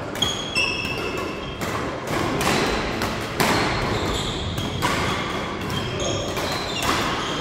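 Badminton doubles rally: sharp racket strikes on the shuttlecock and feet landing on the wooden court, with short high squeaks of shoes skidding on the floor, echoing in a large hall.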